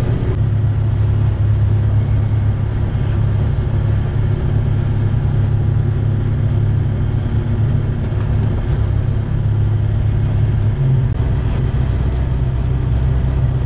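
Remos GX light aircraft's Rotax 912 four-cylinder engine and propeller running at low power while taxiing, a steady drone heard inside the cabin. The engine note shifts lower about eleven seconds in.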